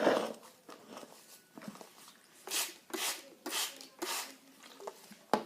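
Hands kneading and pulling sticky butter slime, newly activated with borax water: a sudden rustle at the start, then a run of short sticky squelches, about four in quick succession in the middle and another near the end.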